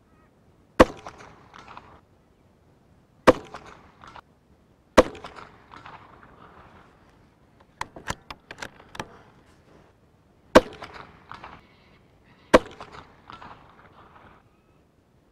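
An Anschutz 1761 .22LR bolt-action rifle fired five times, a few seconds apart, each shot a single sharp crack. Between shots comes a run of quieter metallic clicks as the bolt is worked to chamber the next round.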